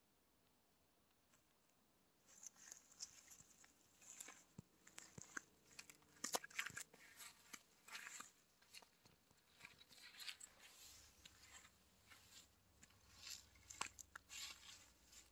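Faint, irregular rustling and crackling of dry leaves and plants being disturbed, with scattered small clicks and snaps. It starts about two seconds in.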